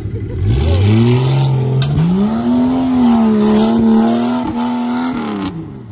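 An off-road SUV's engine revving hard under load as it climbs a dirt ledge: the revs rise steeply from about half a second in, hold high for about three seconds, then drop away near the end.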